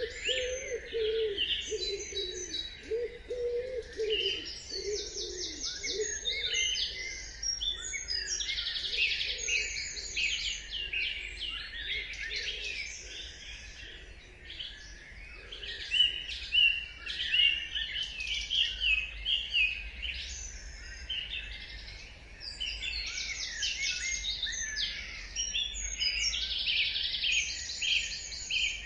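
Dawn chorus: many songbirds singing together, with overlapping chirps and fast trills. A lower repeated call sounds under them for the first six seconds or so.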